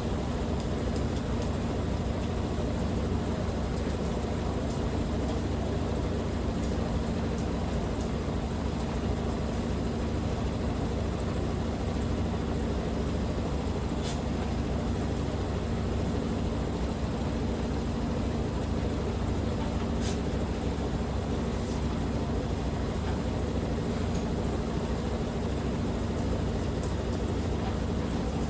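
Washing machine spinning at a steady speed in its spin cycle: a constant low hum with a steady whine, unchanging throughout, with a couple of faint clicks.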